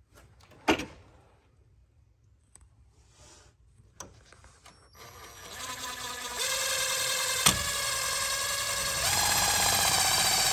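Cordless drill driving a self-tapping screw into an aluminum strip: a sharp click about a second in, then from about five seconds the drill's motor whines steadily under load, growing louder about nine seconds in.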